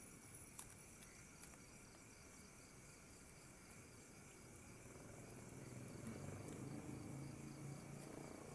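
Faint, steady pulsing chirps of night insects such as crickets. About five seconds in, a faint low hum joins them.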